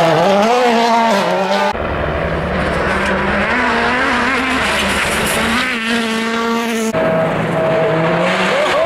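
World Rally Car turbocharged four-cylinder engines revving hard through corners, the pitch climbing and dropping with throttle and gear changes. Three short passes are cut together, the engine note changing abruptly about two seconds in and again about seven seconds in; the first is a Toyota Yaris WRC.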